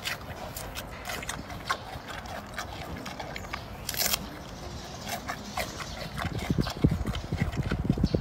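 Giant panda cub chewing and snapping fresh bamboo: irregular crunching and cracking, with a sharper crack about four seconds in and a run of low thuds near the end.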